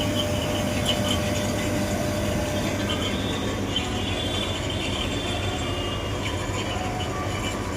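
Chest freezer's refrigeration compressor running with a steady low hum under an even rush, with faint high whistling tones over it, as the unit is being charged with refrigerant gas.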